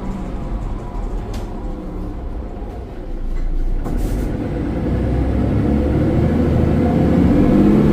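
Mercedes-Benz Citaro bus's OM906 6.4-litre diesel engine running, growing louder from about three seconds in as it works harder. Two brief clicks sound along the way.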